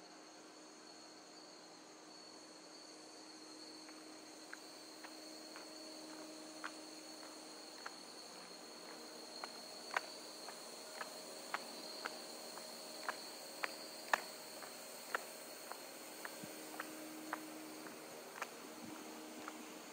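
Crickets trilling in one steady high-pitched drone, with footsteps coming in about four seconds in: crisp steps, about two a second, that grow louder as they approach.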